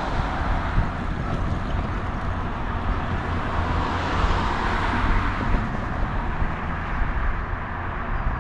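Road traffic at a railroad grade crossing: cars driving past on the road, one passing close about four seconds in, over a steady low rumble.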